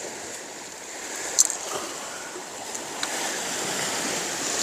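Sea water washing and surging against shore rocks, a steady hiss, with one sharp click about a second and a half in.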